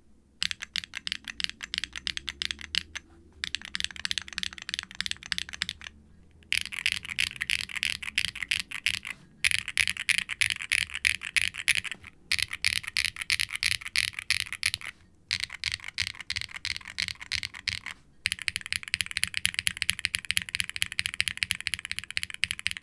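Fast typing on a mechanical keyboard: Keygeek B1 linear switches with glass-fibre-filled bottom housings, in an undampened aluminium Wilba.tech Salvation case with an FR4 plate and doubleshot ABS keycaps. It makes a dense, bright clack in runs of about three seconds, each broken by a brief pause.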